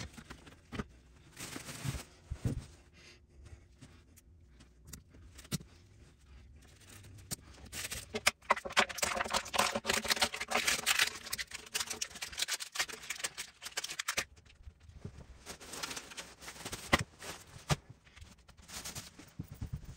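Hand-work noises during a toilet install: scattered metallic clicks and knocks as a wrench works the old closet bolts at the floor flange, then a few seconds of dense rustling and scraping as a wax ring is handled and pressed onto the toilet's outlet, followed by more light clicks and taps.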